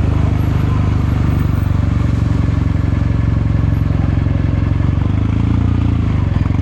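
Kawasaki Meguro K3's air-cooled parallel-twin engine and exhaust running steadily under way, its note shifting slightly in pitch about five to six seconds in.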